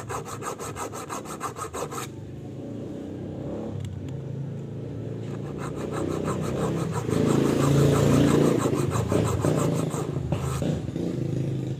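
Hacksaw blade scraping a groove into the skirt of an aluminium motorcycle piston, cutting shallow oil-retaining grooves. Quick short strokes, about seven a second, for the first two seconds, then denser continuous scraping over a steady low hum that is loudest around eight seconds in.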